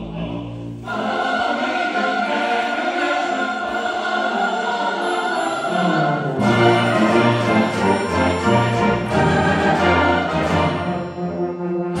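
A large choir and a brass band performing a Christmas piece together. The sound swells about a second in, and low brass notes join about halfway through.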